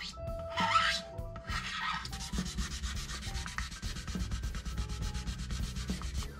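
Hand sanding the nitrocellulose lacquer at the edge of a Les Paul body with a small piece of abrasive, wearing the finish through for a relic look: a few separate hissing strokes, then from about two seconds in a fast, even back-and-forth rubbing.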